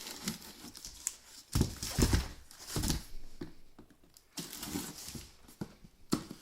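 A cardboard shipping box being cut and opened by hand: irregular scraping and tearing of packing tape and cardboard, with a sharp click near the end.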